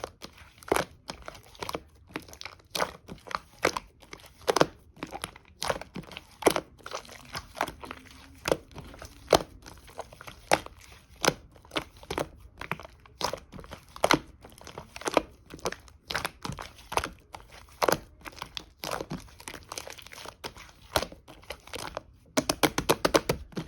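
Clay-mixed slime being kneaded and pressed by hand, giving irregular sharp crackling pops, about one or two a second, with a quick run of small clicks near the end.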